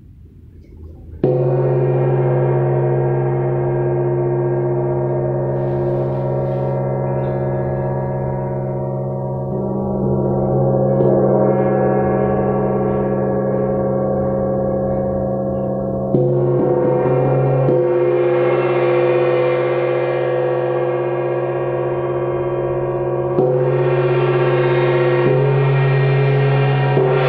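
A 20-inch wind gong struck with a mallet three times, about a second in, around the middle and a few seconds before the end, with a gentler swell in between. It rings on continuously with a dense shimmering wash of overtones that never dies away between strokes.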